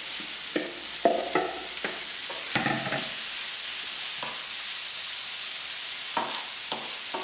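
Diced courgette and aubergine frying in hot olive oil in a frying pan, sizzling steadily, as they are tipped in and stirred with a wooden spoon; the spoon knocks and scrapes against the pan in short irregular strokes.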